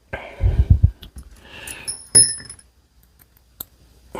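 Air rifle parts being handled during reassembly: knocking and scraping as a part is slid into place, then a small metal piece clinks with a brief high ring about two seconds in.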